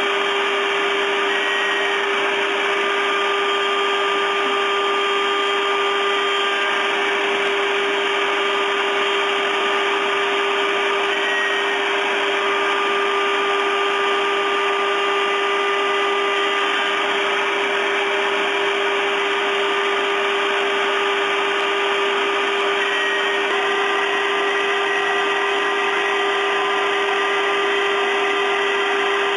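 4-axis CNC milling machine running a roughing pass on a block of wood: a steady spindle whine over the cutter's chewing noise and the rush of dust extraction at the cutter. A few of the steady tones step to a new pitch now and then as the toolpath moves on.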